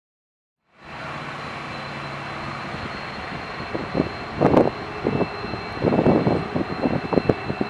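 Twin EMD WDG4 diesel locomotives, with turbocharged EMD 710 engines, running as they approach slowly: a steady engine hum under a high turbocharger whine. The sound starts suddenly out of silence about a second in. From about four seconds in, loud irregular noises come and go over it.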